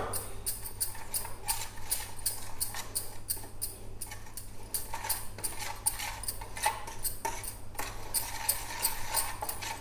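Steel spoon scraping and clinking against a steel plate as it stirs a wet paste of ground clay diya powder, toothpaste and water, in quick repeated strokes a few per second.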